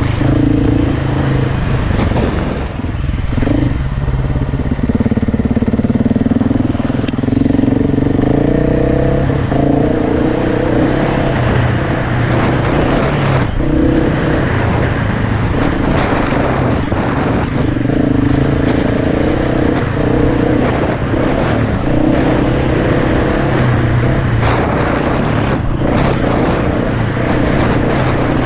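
KTM enduro dirt bike engine running hard under throttle. Its pitch rises and falls over and over, with a few brief dips where the sound drops away.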